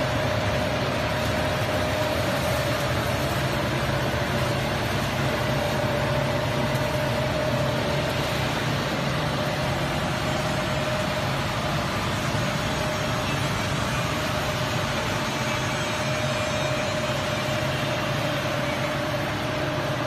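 Tea winnowing machine running: its blower fan makes an even rushing noise with a constant mid-pitched tone, unchanging throughout.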